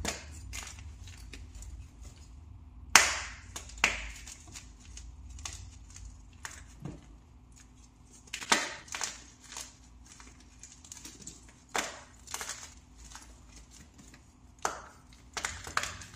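Plain pressed-powder blocks crunching as they are crushed by hand, in a dozen or so irregular crunches, the loudest about three seconds in.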